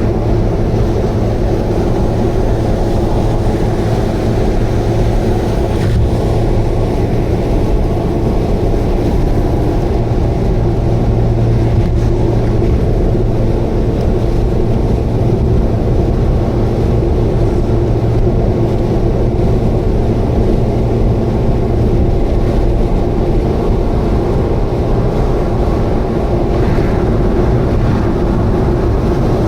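Subaru Vivio KK3 at steady expressway cruise, its small four-cylinder engine and exhaust making a constant low drone with a strong hum. The drone is the abnormal noise that the owner thinks may be an exhaust leak.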